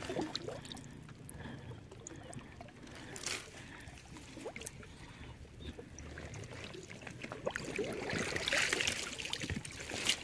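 Faint trickling and dripping of water off a wire-mesh fish trap just lifted from the marsh, with scattered light clicks from the trap. About eight to nine and a half seconds in there is a louder stretch of rustling.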